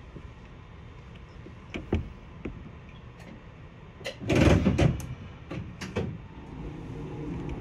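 Streetcar running with a steady low rumble and scattered knocks, then a loud burst of clatter and knocks about four seconds in, with a few more knocks just after.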